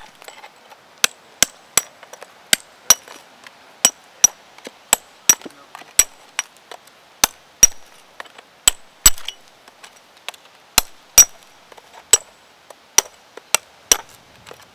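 Hand hammer knocking the layered casting mould off a freshly cast cannon: sharp, irregular blows about two a second, many with a brief high metallic ring, as the mould breaks away in flakes.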